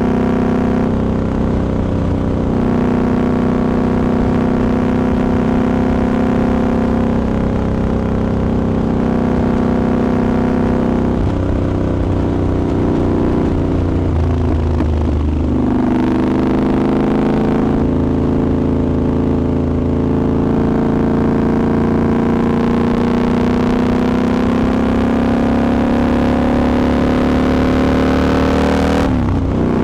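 Triumph Scrambler 1200 XE's parallel-twin engine heard onboard while riding. The engine note dips sharply and picks up again about halfway through, then climbs slowly with a growing rush of wind before dipping again near the end.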